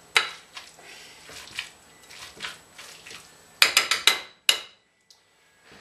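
Metal potato masher working avocado in a mixing bowl: soft mashing strokes with light knocks, then a quick run of sharp clinks of metal against the bowl about three and a half seconds in, and one more a moment later.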